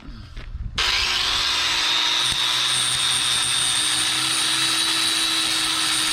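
Angle grinder switched on about a second in, its pitch rising as it spins up, then running steadily at full speed.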